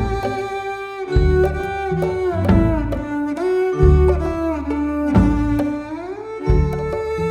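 Instrumental background music: one held melody line that slides between notes, over a deep bass note repeating about every second and a half.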